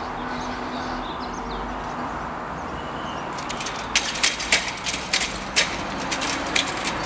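Level crossing barrier booms rising with a low steady hum. About three and a half seconds in comes a run of sharp clunks and rattles as a car drives over the crossing.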